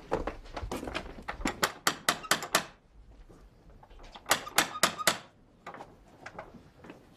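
Iron door knocker rapped several times in quick succession on a heavy wooden door, then after a pause of more than a second a second round of quick knocks. Footsteps on stone come before the knocking.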